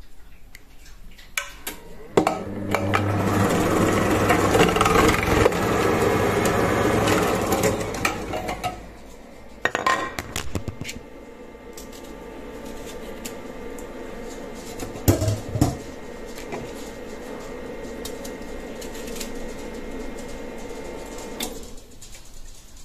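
Monsieur Cuisine kitchen machine driving a SILVERCREST food-processor grating disc, shredding halved potatoes. It runs loud and rough under load for about six seconds, then runs on more lightly with a steady whine and a couple of knocks before it stops near the end.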